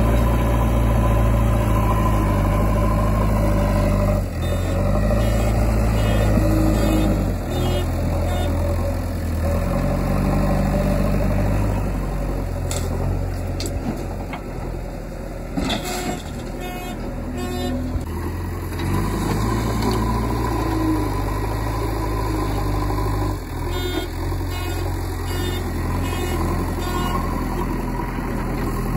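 Diesel engine of a JCB backhoe loader running steadily, its note dropping and picking up every few seconds as the hydraulics take load while it digs and loads mud into a tipper truck. A few sharp knocks come near the middle.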